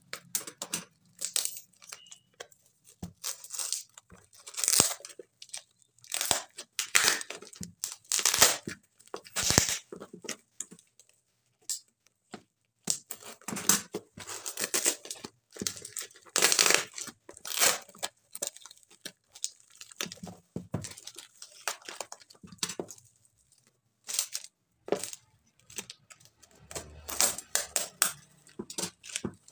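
Packing tape and plastic wrapping being torn off a cardboard parcel by hand in short, irregular rips, with crinkling between them.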